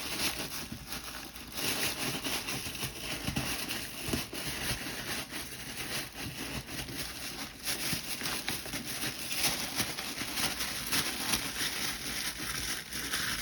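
Tissue paper rustling and crinkling as it is handled and tucked down, with irregular small crackles throughout.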